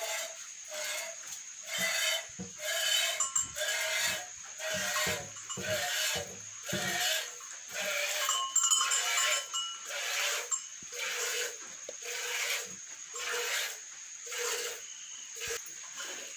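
Cow being milked by hand: milk squirting into a pail in a steady rhythm of short hissing strokes, a little more than one a second.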